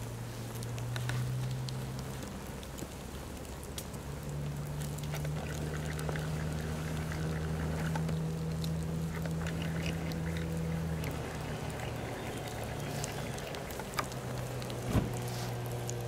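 Blue fluffy fabric pants burning, with faint scattered crackles and ticks as flaming bits drip off, and one sharp pop near the end. Under it runs a steady low mechanical hum that shifts pitch a few times.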